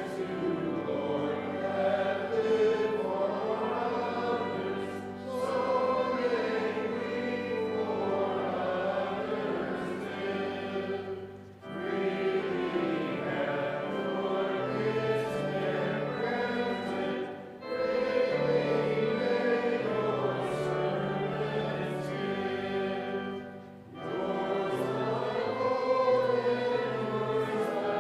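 A congregation singing a hymn in verses over held accompaniment chords, pausing briefly for breath between lines about every six seconds.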